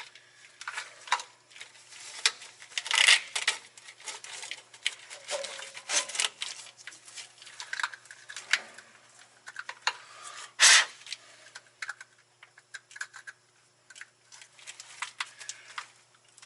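Irregular small clicks, rattles and taps of plastic wiring-harness connectors and wires being handled and fitted together, with one louder knock about ten and a half seconds in.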